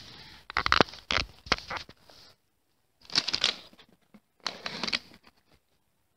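Plastic blind-bag packet being handled and crinkling, in several short bursts of rustling with small clicks and dead gaps between them.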